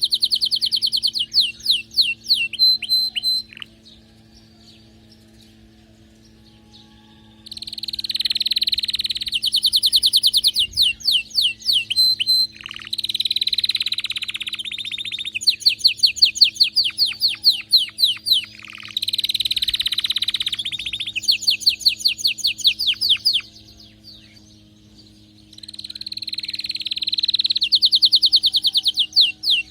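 Canary in full, excited song: long bouts of rapid rolling trills and fast repeated chattering notes, breaking off twice for a few seconds. A steady low hum runs underneath.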